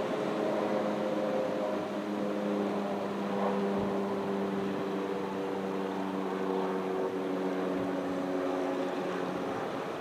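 Steady hum of an engine, several even tones holding a nearly constant pitch, over the wash of ocean waves on the beach.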